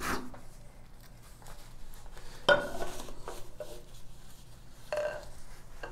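Small installation hardware handled against a tiled shower wall: three short, sharp clinks about two and a half seconds apart, each ringing briefly, with faint handling noise between.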